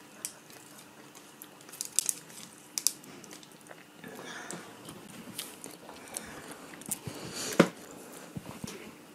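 Close-miked chewing of pineapple, with wet mouth smacks and clicks scattered throughout and the loudest smack toward the end.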